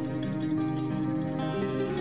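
Instrumental background music with held and changing notes at a steady level.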